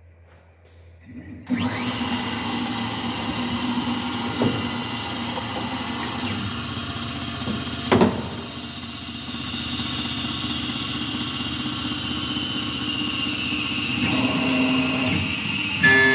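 Langmuir MR-1 gantry CNC mill starting its program: the spindle spins up with a quick rising whine about a second in, then runs steadily at high speed while the gantry moves the head over the aluminum workpiece. A single sharp knock comes about 8 s in, and a high tone slowly falls near the end.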